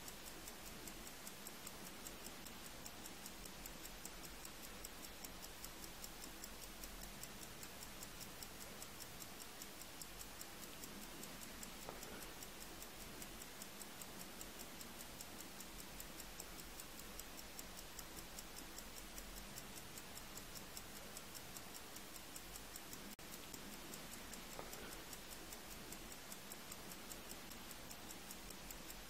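A mechanical watch ticking quickly and evenly, several ticks a second, over a faint steady hiss.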